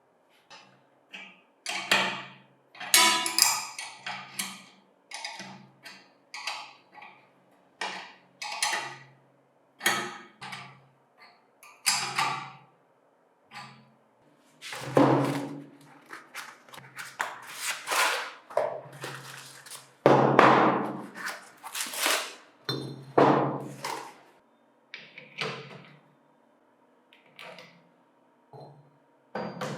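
Irregular series of knocks, taps and clatter from hand work on parts, with short ringing after some strikes and a few denser, louder bursts of handling.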